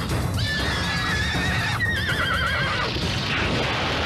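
A horse whinnying as it rears: one long neigh starting about half a second in, held level and then breaking into a quavering trill near its end. A steady low rumble runs underneath.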